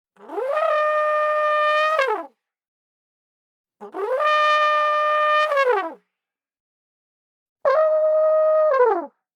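Elephant trumpeting: three calls, each sliding up, holding one steady pitch and then sliding down, the first two about two seconds long and the last shorter, with silence between them.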